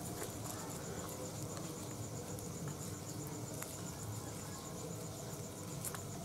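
Insects chirping: a faint, high, evenly pulsing trill, with a few soft clicks.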